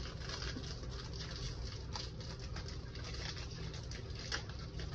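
Faint rustle and crinkle of a foil trading-card pack being torn open and handled, with a couple of light clicks, over a steady low hum.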